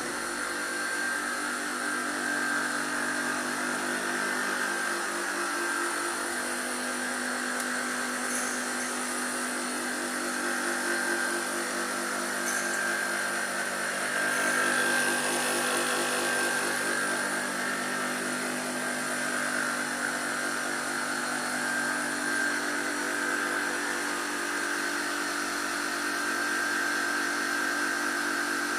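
Surface grinding machine running steadily after being switched on: a continuous electric motor hum and whine from the spinning grinding wheel, holding an even pitch throughout.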